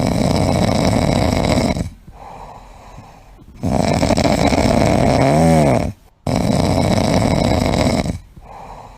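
An animal snoring loudly: three long snores of about two seconds each, with quieter breaths in between. In the middle snore there is a brief whine that rises and falls in pitch.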